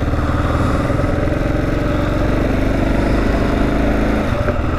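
Kawasaki KLR650's single-cylinder four-stroke engine running steadily as the motorcycle rides along, with a short break in its note near the end, heard as a gear change up.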